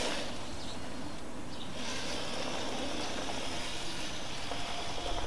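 1/8-scale RC rock crawler's motor and drivetrain whirring steadily and faintly as it crawls slowly over a concrete curb.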